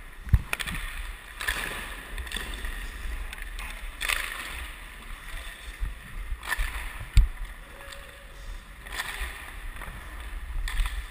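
Hockey skate blades carving and scraping across the ice in long strides, a sweep every two to three seconds, over a low rumble of wind on the microphone. Two sharp knocks cut through, one just after the start and a louder one a little past the middle.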